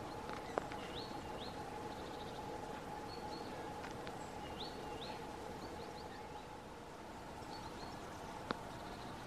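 Small songbirds calling, short high chirps often in pairs, over a steady outdoor background hiss and faint hum. Two sharp clicks stand out, about half a second in and near the end.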